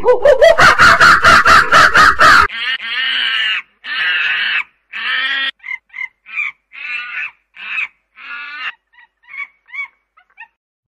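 Monkey calls: a fast, loud run of pulsed chattering cries, then three calls of about a second each. After that comes a string of short calls that get quieter and sparser near the end.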